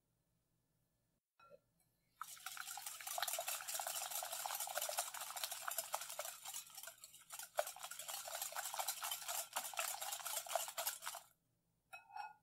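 Wire whisk beating eggs and sugar in a glass mixing bowl: a fast, continuous scraping rattle of the wires against the glass that starts about two seconds in and stops about a second before the end, with a short clink just after.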